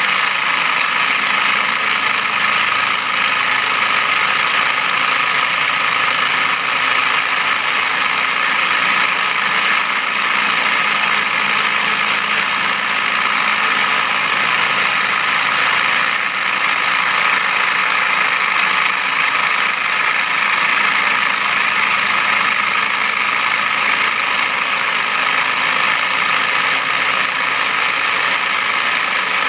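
CNC milling machine running steadily as its cutter bores a hole in a bracket: a continuous machining noise with a steady high whine.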